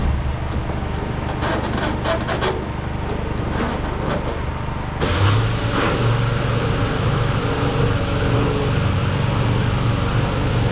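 A farm vehicle's engine running steadily, with a few faint knocks. About five seconds in it gets louder, with a deeper, steady hum.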